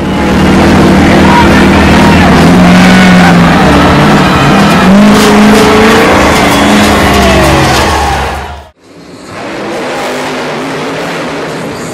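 Big truck engines revving hard as two trucks strain against each other on a tow strap, the pitch rising and falling. About eight and a half seconds in, the sound cuts off abruptly and is replaced by quieter engine noise.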